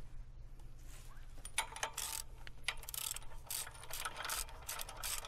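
Ratchet wrench clicking in repeated strokes, about three a second, as a mounting bolt on the disc-harrow attachment is tightened. The clicking starts about a second and a half in.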